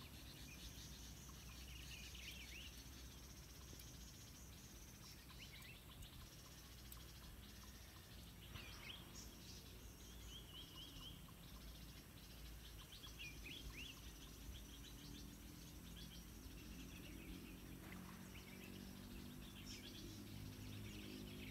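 Near-silent outdoor ambience: a faint low rumble with many small, scattered bird chirps, and a faint low hum coming in during the second half.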